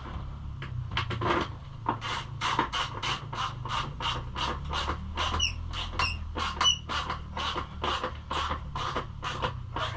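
Rhythmic scraping strokes of a hand tool working on metal, about four a second, with a few short squeaks in the middle.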